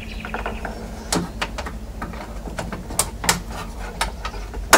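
Irregular sharp clicks and knocks of a Holden Commodore VE's exterior door handle and key chamber being pushed and worked into place by hand, with the loudest knock near the end.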